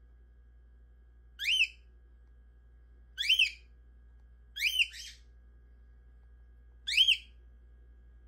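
Cockatiel giving four short whistled chirps, spaced one to two seconds apart. Each chirp quickly rises and falls in pitch, and the third comes as a quick double note.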